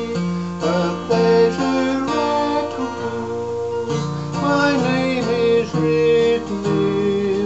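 A man singing a gospel song, accompanying himself on a strummed acoustic guitar.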